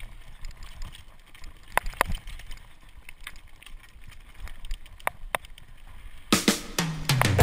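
Mountain bike rolling down a rocky dirt trail: low tyre and trail noise with scattered sharp clicks and knocks from the bike over bumps, and a burst of louder rattling about six seconds in.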